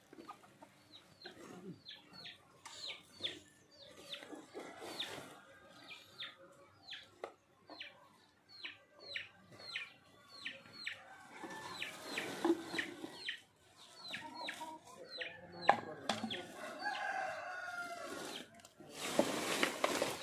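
Chicks peeping over and over: short high calls that each drop in pitch, two or three a second. Near the end comes a louder rustling as a woven sack and a cloth bundle are handled.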